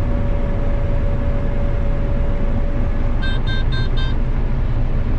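Steady running noise of a combine harvesting corn, heard from inside the cab. Just past the middle, an electronic alert beeps four times in quick succession.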